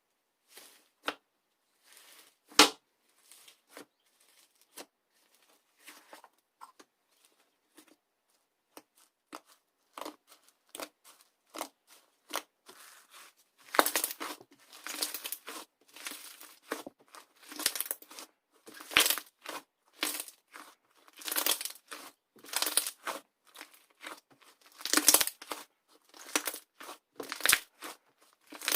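Iceberg slime being handled, its hardened crust crackling and crunching. Scattered single crackles at first, then from about halfway on a run of denser, louder crunchy bursts about once a second.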